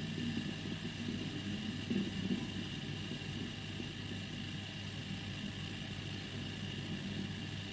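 Hitachi TRK-3D30 boombox's cassette mechanism running: a steady low motor hum with a faint high tone above it.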